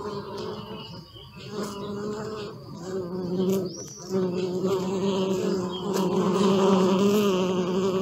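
A bee buzzing at close range: a steady wing hum that swells and fades, dipping briefly about a second in and again around four seconds, and loudest near the end.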